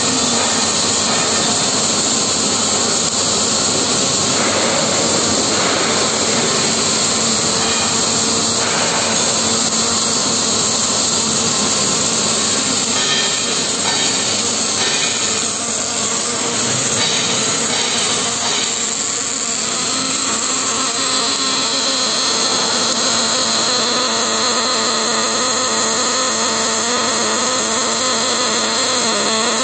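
Robotic arc welding of a pipe flange: the robot's welding torch arc makes a loud, steady hiss that holds almost unchanged throughout.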